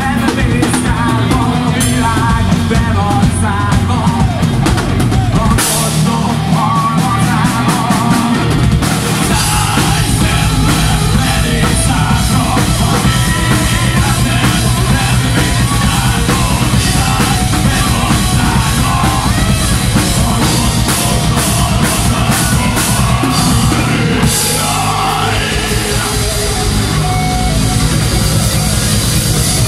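A rock band playing live: drum kit, bass guitar and electric guitar, with a sung lead vocal over them in stretches.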